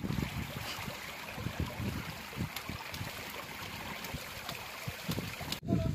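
Shallow stream water trickling and flowing steadily, with small scattered knocks and splashes.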